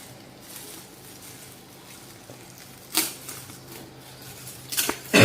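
Faint handling and rustling of a gift's wrapping as it is pulled open by hand, with a sharp crackle about three seconds in and a couple of short clicks near the end.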